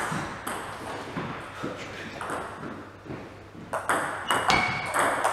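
Plastic table-tennis ball clicking off paddles and the table: scattered taps at first, then a rally of quick, sharp clicks from about three and a half seconds in.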